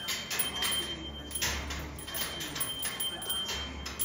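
Parrot playing with a hanging bell toy in its cage: irregular clinks, taps and rattles of the bell and its chain.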